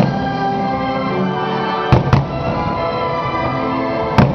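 Aerial fireworks shells bursting over the show's music soundtrack: two bangs close together about two seconds in and another near the end.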